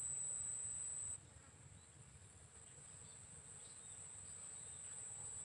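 Insects trilling at one high, steady pitch. Background hiss drops about a second in, leaving the trill with a faint pulsing to it.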